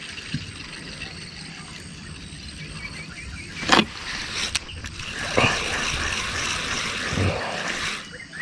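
Spinning reel being cranked to reel in a hooked fish: two sharp clicks, then from about five seconds in a steady whirring of the reel under load.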